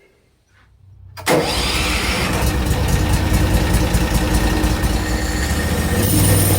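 Gasoline engine of a portable bandsaw mill starting abruptly about a second in and then running steadily, getting a little louder near the end.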